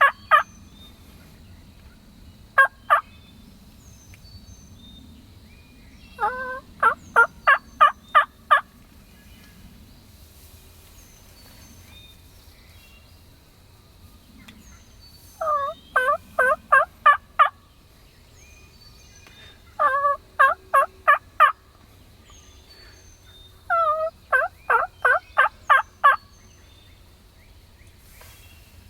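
Turkey yelping: four series of six to eight yelps each, every note breaking from high to low, with a short pair of notes a few seconds in. Faint songbird chirps sound in the background.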